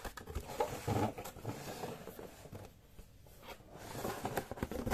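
Cardboard box being handled and shifted by hand: irregular rustling and scraping of the cardboard with light knocks.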